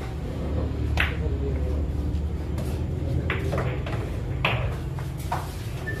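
Pool balls clacking on a billiard table: a sharp crack of the cue ball being struck about a second in, then three more separate ball-on-ball clicks over the next few seconds, over a low murmur of the room.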